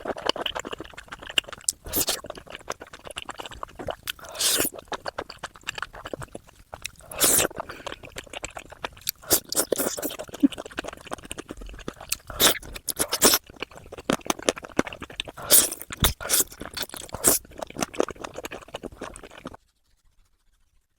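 Close-miked eating: crunchy bites and chewing, with frequent crisp clicks and louder bites every second or two. The eating sounds stop suddenly near the end.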